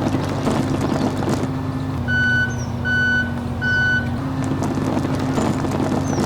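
A small machine's motor runs steadily, and about two seconds in a reversing alarm sounds three beeps, a little under a second apart. A few faint bird chirps can be heard too.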